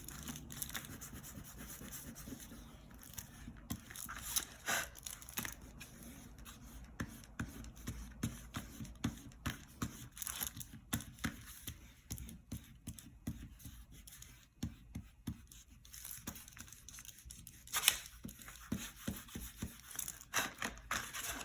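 Pencil eraser rubbing on paper in many short, irregular strokes as pencil lines are erased, with a few louder knocks among them.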